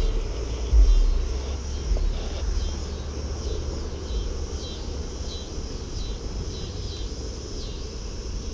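Wind buffeting the microphone: a low, gusty rumble that surges hardest right at the start and again about a second in, then settles to a steadier rush.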